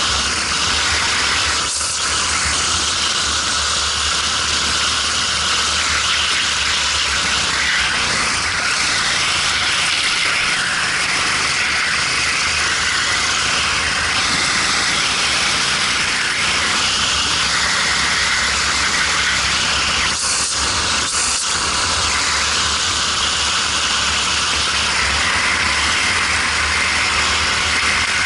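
Racing kart engine running on track, heard from a helmet-mounted camera under heavy wind rush, with its higher engine note coming and going.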